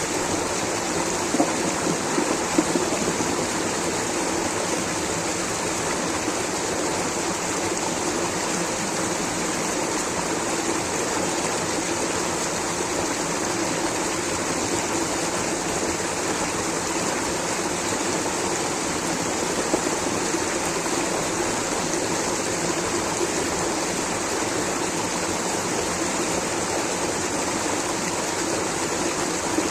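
Rushing water flowing steadily, an unbroken hiss and rumble of moving water.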